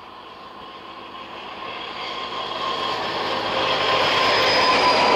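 PSŽ class 740 diesel-electric locomotive running light as it approaches and passes, its engine and a steady high whine growing steadily louder toward the end.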